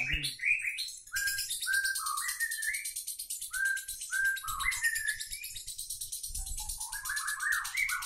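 Lovebird singing its long 'ngekek' chatter: a fast, buzzy trill that runs on without a break, with short rising chirps repeated every half second or so and a denser run of chirps near the end.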